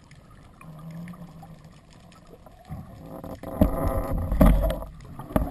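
Underwater water noise on a camera housing as a spearfisher swims up toward the surface: quiet at first, then a loud low rushing and bubbling from about three and a half seconds in.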